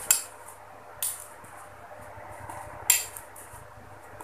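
Metal spoon stirring slime in a glass bowl, clinking sharply against the glass three times: at the start, about a second in, and again near three seconds.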